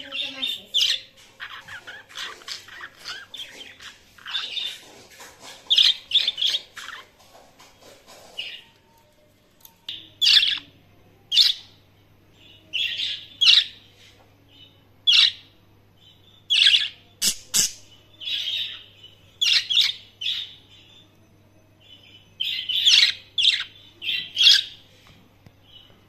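Pet budgerigars chirping and warbling. A dense run of chatter gives way, about eight seconds in, to separate sharp chirps coming roughly once a second.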